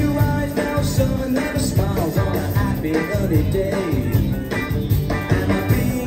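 A live pop band playing an upbeat number: electric guitars over drum kit and congas, heard from the audience.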